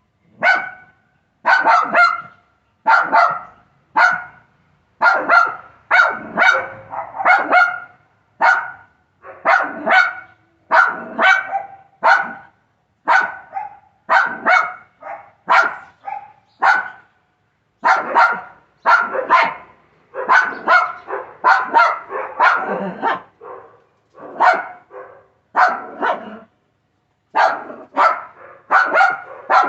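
Small dog, a Shih Tzu, barking over and over in short sharp barks about one a second, with a few brief pauses.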